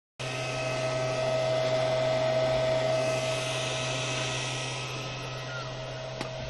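Electric cordless kettle heating water, a steady rushing hiss that swells a little and then eases, with a constant hum from the portable power station running it.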